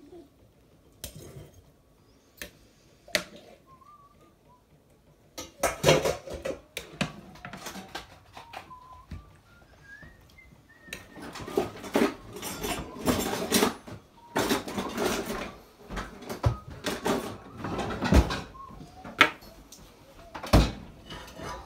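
Metal utensils clinking and scraping against a crockpot and dishes as a cooked chuck roast is lifted out of the pot. There are only a few light clicks at first; from about five seconds in it becomes a busy, irregular clatter.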